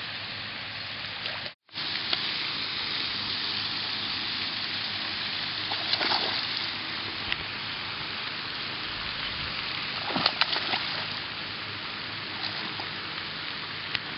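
A bass splashing as it is let go into shallow pond water, over a steady outdoor hiss. There are brief splashes about six seconds in and a cluster of them around ten seconds in.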